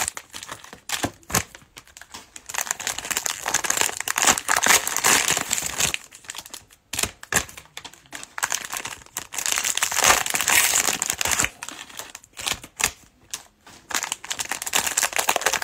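Plastic cello-pack wrappers of trading cards crinkling in irregular bursts as packs are handled and torn open, with a few brief pauses.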